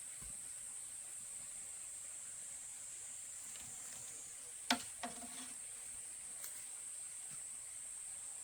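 Steady high-pitched insect drone. About halfway through comes one sharp knock, followed by a lighter one.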